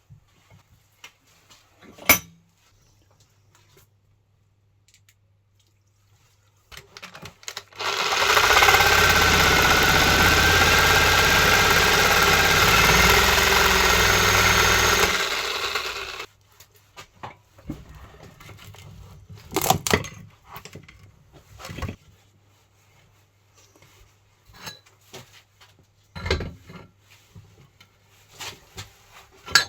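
A power tool starts with a short lead-in about seven seconds in, runs loud and steady for about seven seconds, then stops abruptly. Scattered metallic clicks and clinks of tools being handled come before and after it.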